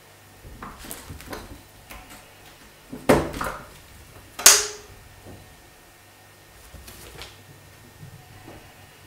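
A cat pawing and rattling a round metal doorknob, with small scrabbling clicks, then two loud knocks about three and four and a half seconds in as the knob turns and the door latch gives. The door then swings open with a few soft bumps.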